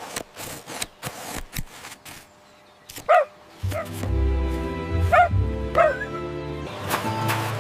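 A run of sharp snips from scissors cutting cardboard, then a cartoon puppy gives three short barks. Background music with a bass line comes in about halfway through.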